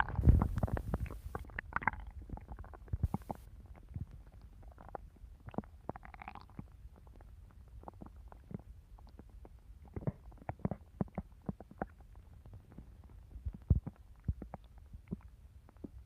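Stomach growling: irregular gurgles, pops and rumbles from the gut, loudest in the first two seconds, with a longer gurgle about six seconds in.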